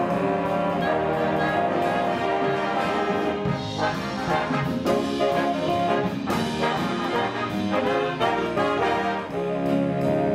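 Big band playing in full ensemble, saxophones and brass together, with a run of short accented chords through the middle.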